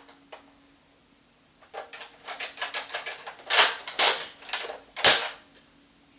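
Plastic clicks and clacks of a Nerf Delta Trooper blaster being worked by hand, its lock lever being flipped. A couple of faint clicks, then from about two seconds in a quick run of clicks with several louder clacks.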